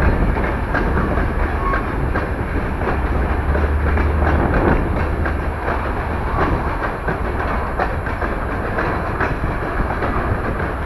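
CSX freight train rolling past: a steady rumble of steel wheels on the rails, with faint irregular clicking at the rail joints.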